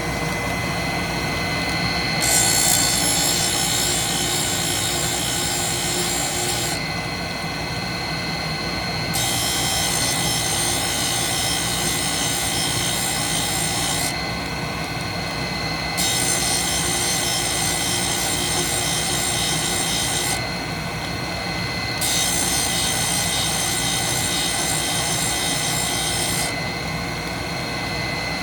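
Grinder motor running with a steady whine while a grinding wheel is brought against a stack cutter's teeth: four long passes of hissing grinding, each several seconds, with short breaks between them as the wheel touches in to set the sharpening angles.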